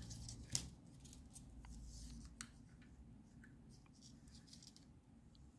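Small hobby servos faintly whirring and clicking in a few short bursts as they swing a 3D-printed thrust-vectoring gimbal, mostly in the first half.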